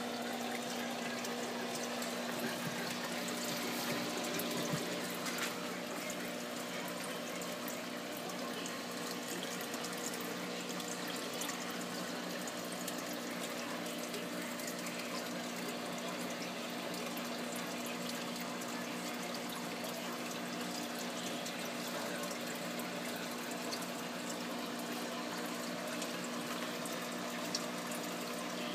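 Reef aquarium refugium and its plumbing running: a steady rush of circulating water with an even, low pump hum beneath it.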